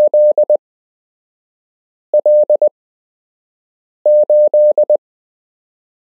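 Morse code (CW) sent as a single steady beep tone, keyed in quick dots and dashes: three short groups with pauses of over a second between them, part of a run of random amateur radio call signs played for copying practice.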